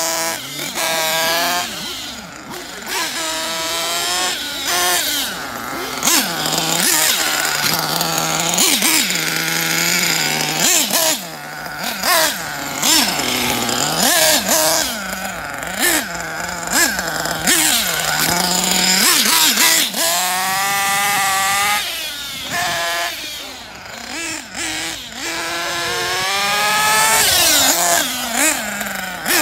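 Kyosho Inferno NEO ST 3.0 nitro RC truggy's small glow-fuel engine revving up and down again and again as the car is driven, its high pitch climbing and dropping with each throttle stab and lift.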